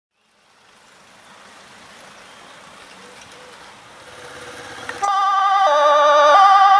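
Faint outdoor road ambience fading in, then about five seconds in a Dutch fire-service two-tone siren cuts in loudly. It alternates between a high and a low note, each held a little under a second.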